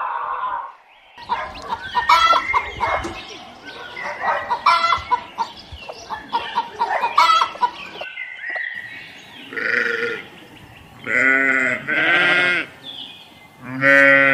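Chickens clucking and calling in a busy series of short calls for several seconds, followed by three bleats from livestock in the second half, the last bleat the loudest.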